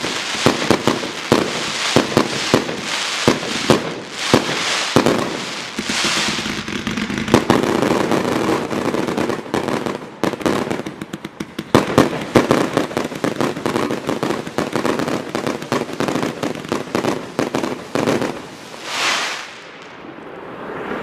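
Hallmark Fireworks' Extravaganza firework going off in rapid, overlapping bangs with crackle, easing briefly about halfway, then firing on, and ending with a single swelling hiss that fades out.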